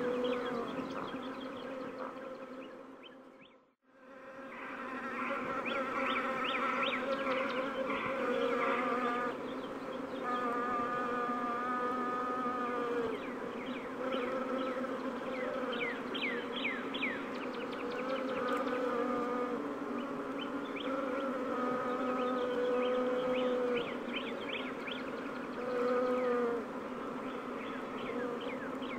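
Bees buzzing: a steady, wavering swarm hum with single bees' buzz rising and falling in pitch as they pass. The sound fades out and back in about four seconds in.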